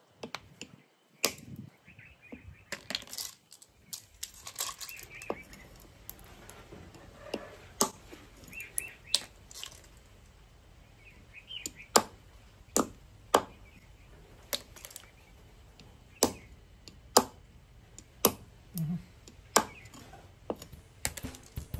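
Kitchen knife chopping the shells of small snails on a wooden chopping block: a string of sharp, irregular knocks and cracks, roughly one a second, with the hardest strikes in the second half.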